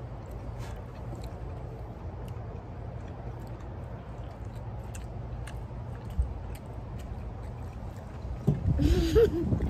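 Quiet eating at a table: faint clicks and chewing over a steady low rumble, with a short hummed voice sound near the end.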